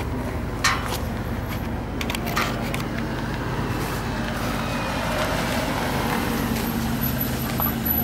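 Steady low engine hum, with a couple of short knocks about half a second and two and a half seconds in.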